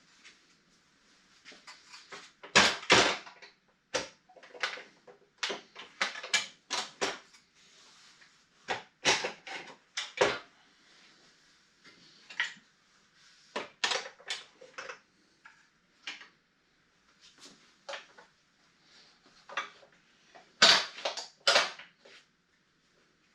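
Irregular metal clanks, knocks and rattles from the parts of a miter saw stand and its saw mounting brackets being handled and fitted together. The loudest knocks come in short clusters about three seconds in and near the end.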